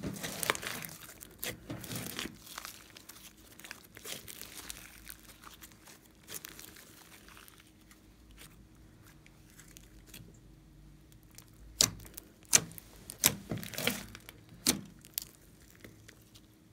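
Glossy foam slime being squeezed, pressed and stretched by hand, giving sharp wet pops and crackles as trapped air bursts. The pops are dense at first, thin out in the middle, and come back as a run of strong pops near the end.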